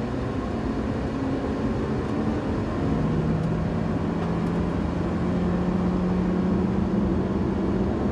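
Nissan Juke Nismo's turbocharged 1.6-litre four-cylinder engine pulling hard at full throttle on a 0-60 mph run, heard from inside the cabin. The engine is held high, around 4,000 to 5,500 rpm, with a steady drone that firms up about three seconds in and rises slightly in pitch as the car gains speed.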